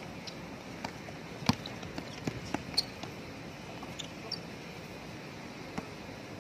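Basketball play on a hard outdoor court: scattered sharp knocks of the ball bouncing and short high squeaks of sneakers over a steady background hiss, the loudest knock about a second and a half in.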